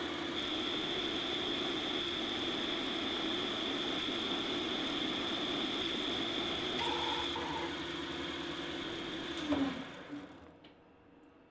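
Home-built CNC lathe running under its automatic program, a steady mechanical whir with a high and a low whine. A short knock comes near the end, then the machine runs down and goes quiet, which fits the program halting at an M00 pause.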